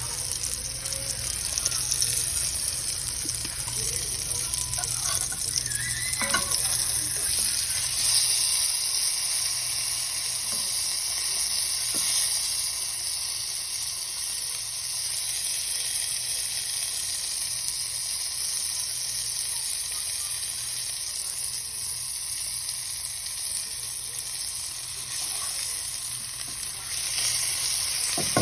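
Food sizzling steadily as it fries in a pan, with a few faint knocks.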